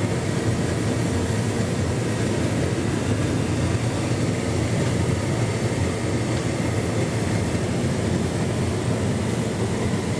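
Hotpoint Ultima S-line tumble dryer running its load-distribution cycle with a full load: a steady, even mechanical rumble of the turning drum, the clothes tumbling rather than pinned to the drum wall.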